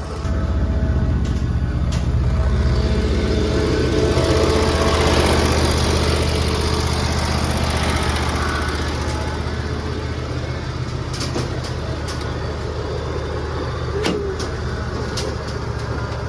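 A vehicle engine running steadily at idle, with a few sharp clicks or knocks about two-thirds of the way in.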